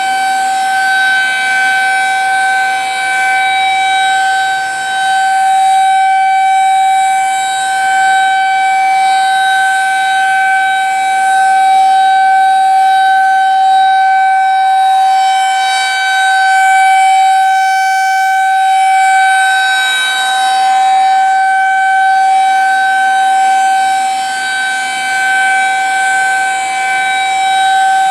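Federal Signal 2001-SRNB rotating outdoor warning siren sounding a steady single tone during a siren test. The pitch holds level, while the loudness swells and dips every few seconds as the rotating horn sweeps past.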